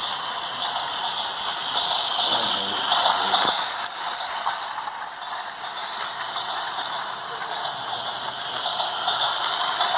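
Toy train running steadily around a plastic track, its small geared motor and wheels making a continuous mechanical sound.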